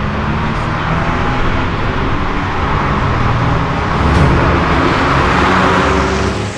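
Porsche sports car driving up the straight and passing by at speed, its engine and tyre noise swelling to the loudest point about five and a half seconds in.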